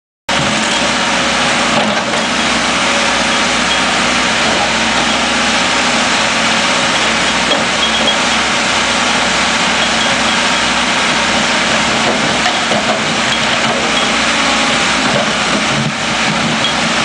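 Backhoe's diesel engine running steadily while its bucket digs into broken sidewalk concrete and soil.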